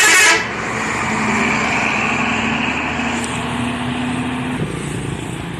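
A bus's multi-tone telolet horn melody cuts off abruptly just after the start. What follows is steady vehicle engine and road noise, with a low drone for a few seconds.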